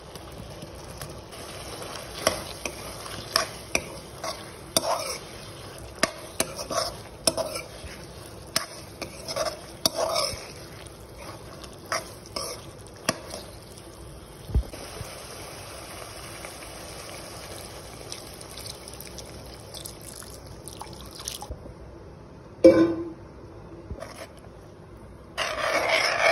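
Potato chunks frying in oily masala in a pan, with a steady sizzle and a spatula knocking and scraping against the pan as it stirs. Near the end the sizzle stops, there is one loud knock, and then a short rush of liquid pouring into the pan for the gravy.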